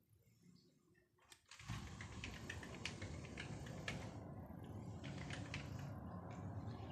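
Faint handling noise: soft rubbing with many light, irregular clicks, starting about one and a half seconds in after near silence.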